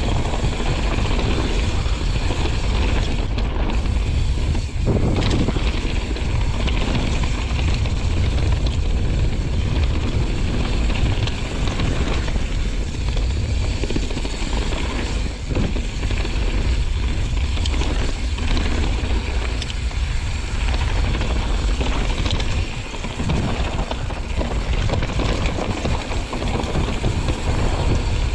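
Wind buffeting the microphone of a camera riding on a mountain bike at speed downhill, with tyres rumbling over the trail surface. A few short knocks and rattles from the bike come through, one about five seconds in.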